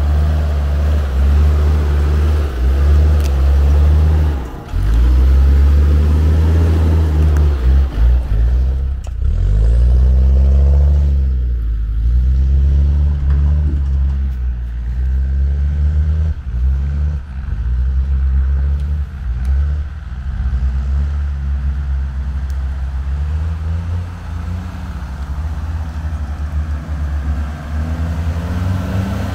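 An off-road 4x4's engine pulls at low speed over rough ground. Its revs rise and fall again and again as it climbs and crawls.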